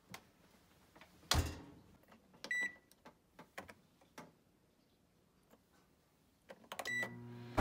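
Microwave oven door shut with a thump, then a short beep and a few clicks as the dial is turned to set 30 seconds. A second beep near the end, and the oven starts to run with a low steady hum.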